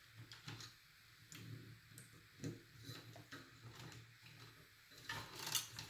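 Light clicks and rustling of cables and plastic as fan connectors are plugged into motherboard headers, with a louder cluster of handling noise near the end.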